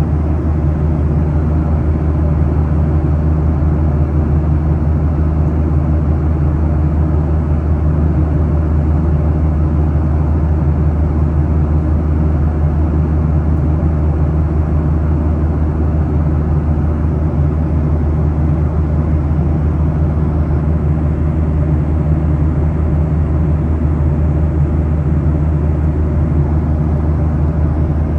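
Airliner cabin noise in flight: a steady low drone of engines and airflow heard from inside the cabin, with a constant low hum and no changes.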